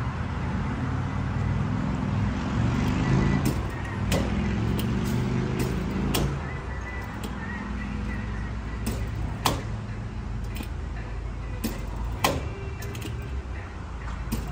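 Gas pump fuel nozzle clicking a dozen or so times at uneven intervals over a low steady rumble. It fits a pump that keeps cutting out, which the owner then calls broken.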